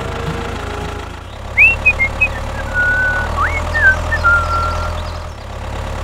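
Tractor engine idling steadily with a low drone that swells about a second in and eases off near the end. A few short high whistling chirps sound in the middle.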